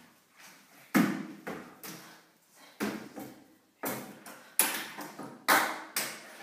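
A series of sharp knocks and thuds, about seven in six seconds at uneven spacing, each dying away with room echo.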